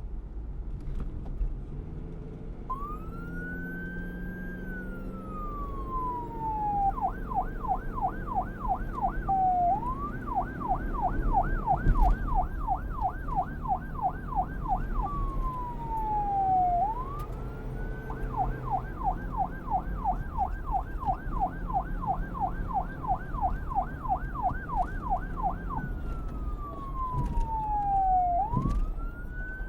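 Emergency vehicle's electronic siren switching between wail and yelp: a slow rising and long falling wail, then runs of fast repeated yelps, with wails between them and again near the end. A steady traffic rumble runs underneath.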